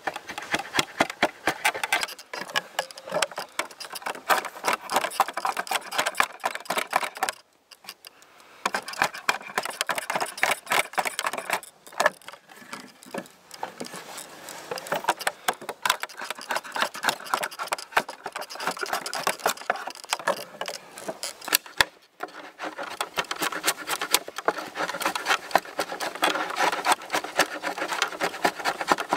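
Drawknife shaving wood clamped in a shaving horse: fast, continuous scraping strokes of the blade through the grain. They break off briefly twice.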